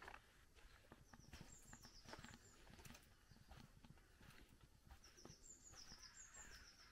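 Faint footsteps of someone walking on a wet dirt lane, with a songbird twice singing a quick series of short, high, falling notes.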